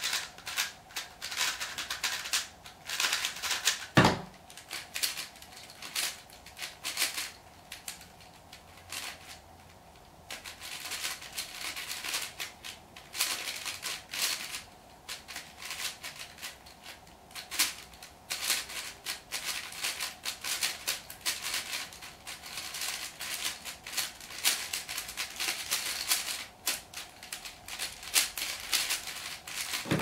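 Plastic speedcubes being turned very fast by hand: dense bursts of clicking and clacking layer turns, broken by short pauses. A single louder knock comes about four seconds in.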